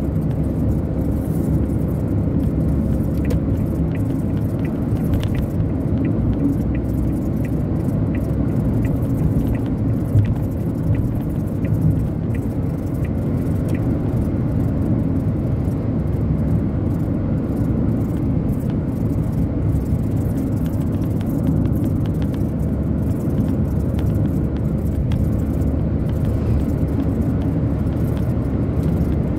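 Steady road and engine rumble heard inside the cabin of a moving car, with faint small rattles in the first half.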